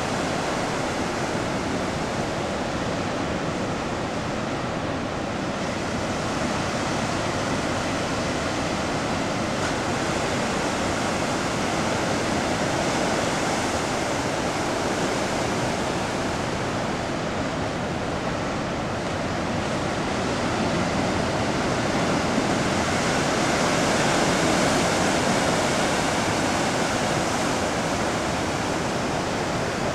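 Rough Pacific surf breaking around offshore rocks and washing in as foam: a steady rushing wash that swells louder about three-quarters of the way through.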